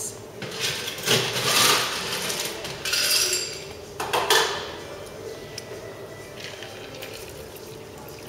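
Ice and metal bar tools clattering and clinking as a Boston shaker tin and strainer are handled, loudest in the first four or five seconds. After that comes a quieter steady pour of the strained cocktail from the shaker tin over ice into a tall glass.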